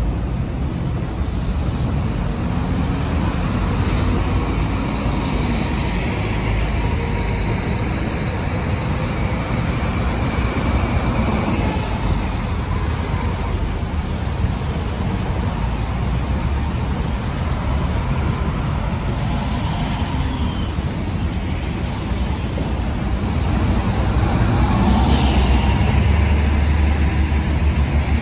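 Diesel engines of MCI highway coach buses running as they pull out and drive past close by, a deep steady rumble over general traffic noise. It grows louder near the end as a coach passes right alongside.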